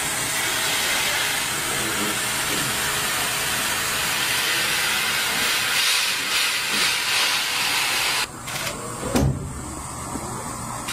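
Steady rushing hiss of air flowing, which drops away sharply about eight seconds in, followed by a low thump about a second later.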